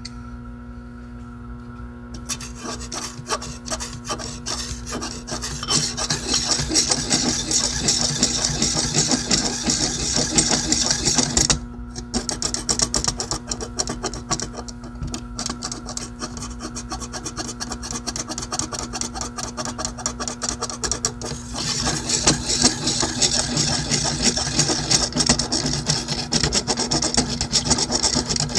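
Fast, rasping rubbing strokes along a knife blade as it is scrubbed clean, in long runs that break off briefly twice.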